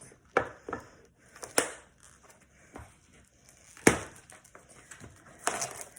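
A big plastic tub and packaged chicken wings being handled: scattered knocks and crinkling, with the sharpest knock about four seconds in.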